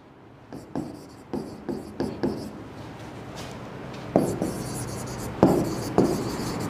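Stylus writing on the glass screen of an interactive display: an irregular run of short taps and scrapes as each letter is stroked, growing louder in the second half.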